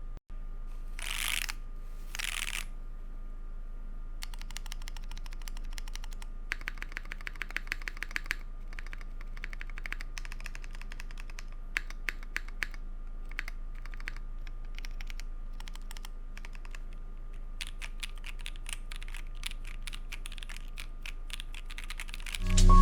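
Typing on a mechanical keyboard with lubed Kailh Polia tactile switches and an aluminum plate: runs of quick keystrokes with short pauses between them. Two short, broader noises come about a second in, before the typing starts.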